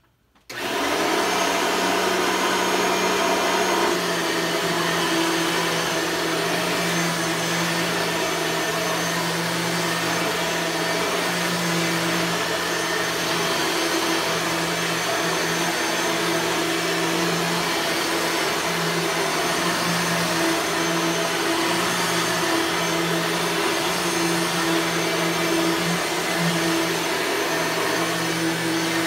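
A 1998 Bissell soft-bag vacuum cleaner with a 9-amp motor switches on about half a second in and then runs steadily, a hum under the rush of air.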